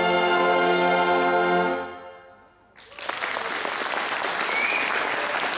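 Brass band holding a final sustained chord that dies away about two seconds in. After a moment's hush, audience applause breaks out.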